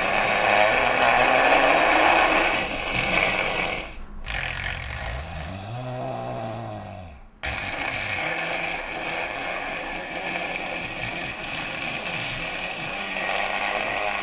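A man snoring loudly in long, harsh breaths. About five seconds in, one snore rises and then falls in pitch. It breaks off abruptly about seven seconds in and then resumes.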